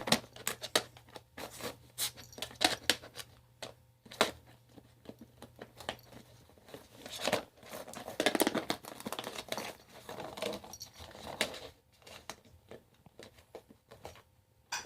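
Chihuahua chewing a plastic container: irregular crinkling, crackling and crunching of the plastic, with a denser run of crunching about halfway through.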